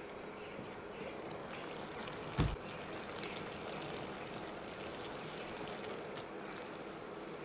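Rice cooking in mutton stock in a wide pan, the liquid simmering with a steady watery bubbling hiss. A single sharp knock about two and a half seconds in, then a wooden spoon moving through the wet rice.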